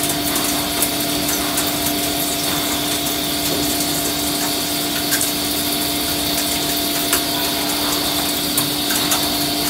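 Metal lathe cutting a positioning cone under a coolant stream: a steady machine hum with a high whine over the hiss of cutting and coolant, with a few sharp ticks.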